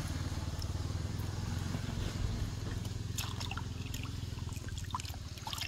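A steady engine hum from an unseen motor runs throughout. Over it, from about three seconds in, come small drips, splashes and ticks as the wet cast net is handled and piled into a basin.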